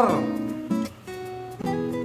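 Background music led by an acoustic guitar, with sustained plucked notes that change about every second.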